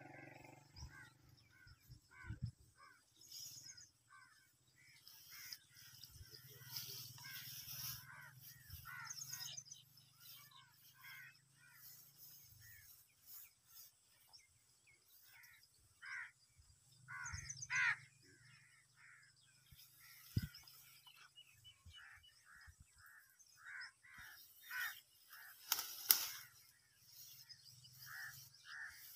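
Birds calling throughout in many short, repeated calls, with a few brief rustles of leaves and grass.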